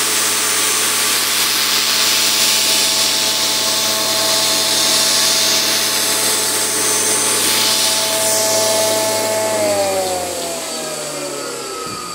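Angle grinder with a wire cup brush scrubbing rust off a planer-thicknesser's cutterhead spindle, a steady motor whine under a harsh scratching hiss. About ten seconds in, the brushing stops and the whine falls steadily in pitch as the machinery is switched off and spins down.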